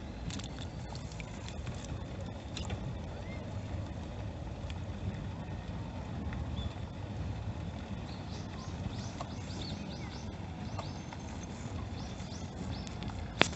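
Steady outdoor background noise with a low rumble, scattered small clicks and knocks, and faint high chirps past the middle; a single sharp click near the end.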